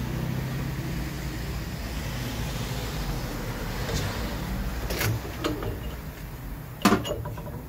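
A steady low machine hum, then metal clicks and one sharp metallic clank near the end as the quick-release hub nut is worked off the wheel balancer's shaft to free the balanced wheel.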